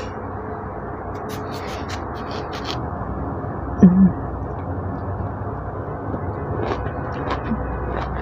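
Quiet sounds of an orange being handled and eaten, faint clicks from the fruit and the mouth over a steady hiss, with one short hummed "mm" about four seconds in.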